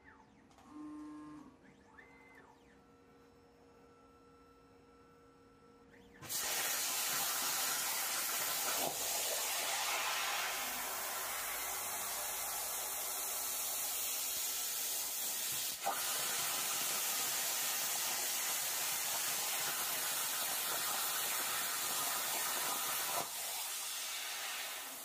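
CNC air plasma torch cutting 1 mm sheet metal at 17 amps: a loud, steady hiss that starts suddenly about six seconds in, after a few faint beeps, with one brief dropout partway through and easing slightly near the end.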